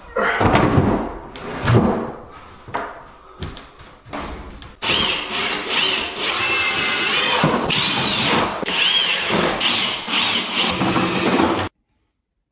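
A few seconds of knocks and clunks, then a power drill running in spurts as the cabinet is fixed to the wall, its motor whine rising and falling in pitch. The sound cuts off abruptly near the end.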